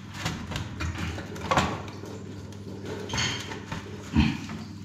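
Plastic casing of an old over-sink water heater knocking and scraping as it is worked off the wall by hand. There is a sharp knock about one and a half seconds in and a dull thud near the end.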